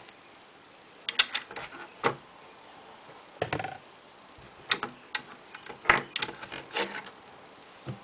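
Plastic Lego bricks clicking and snapping as they are handled and pressed onto a Lego baseplate: a scatter of sharp clicks and taps, some in quick clusters of two or three.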